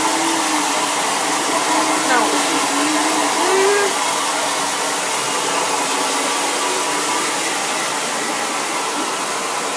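Handheld hair dryer blowing steadily.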